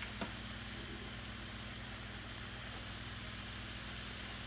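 Tilapia fillets frying in butter in a skillet: a steady sizzle over a low hum, with two light clicks right at the start as a spatula is picked up.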